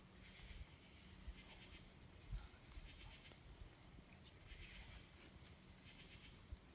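Faint, short, high trilling animal calls repeating roughly once a second, with a few soft low thumps, the loudest about two and a half seconds in.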